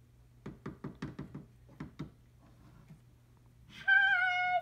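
About eight quick knocks of plastic dolls tapped against a wooden dollhouse in the first two seconds. Near the end a child sings one long, high, wavering note.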